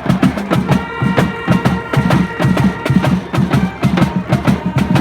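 Music with a fast, even percussive beat of sharp knocking hits and sustained high tones held over it.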